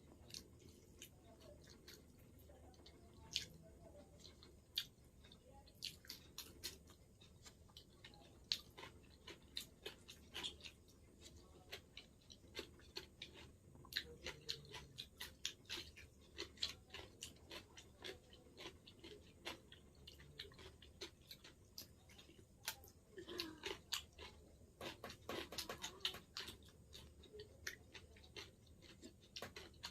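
Faint close-up chewing and mouth sounds of someone eating, with irregular small smacks and clicks that come thicker a little past the middle.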